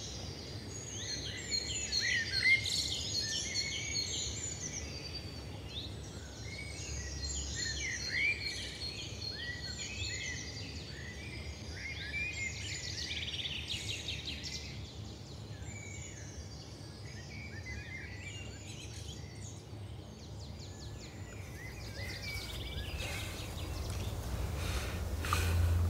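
Many small birds chirping and calling in quick overlapping phrases over a steady low background hum. A few short noisy rustles come in near the end.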